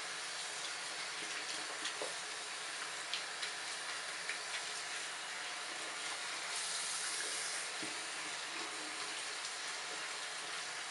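Bathroom sink faucet running, its stream splashing over a kitten's wet fur held under it in the basin, a steady hiss with small scattered splashes. The splashing turns louder and brighter for about a second midway.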